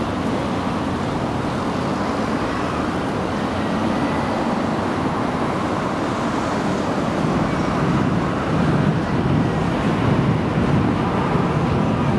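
Keikyu electric train running across a concrete viaduct: a steady rumble and hiss that grows a little louder about eight seconds in as the train crosses.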